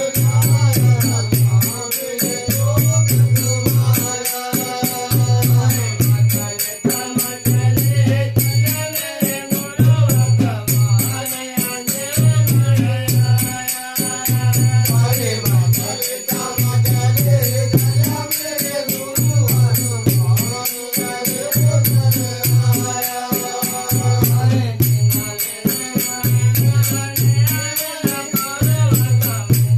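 Men singing a devotional folk song to Guga Jahar Pir, with a rope-laced two-headed drum booming on a steady beat about every second and a half. A fast, even rattle runs along with the drum.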